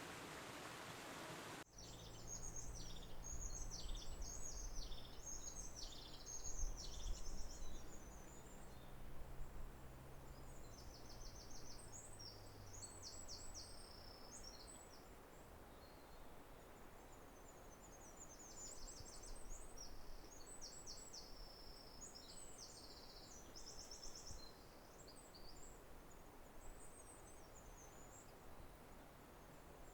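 Small birds singing: repeated high-pitched phrases of quick trills and chirps, heard after a steady hiss cuts off about two seconds in. A low steady hum runs under the first half.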